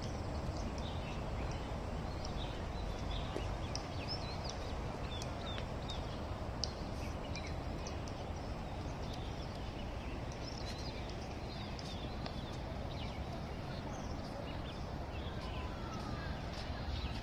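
Small birds chirping in short, scattered calls over a steady low rumble and the thud of footsteps on a paved path.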